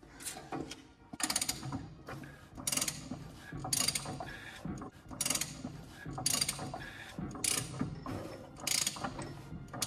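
Ratchet wrench clicking in short strokes, about one a second, turning a Ford GPW jeep's flathead four-cylinder engine over by hand. The engine has a valve stuck at the top, which makes it lock up halfway around.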